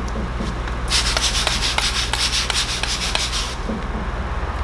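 Handheld spray bottle misting slip solution onto headlight protection film, pumped in quick trigger pulls about four a second for roughly two and a half seconds, starting about a second in. A steady low hum runs underneath.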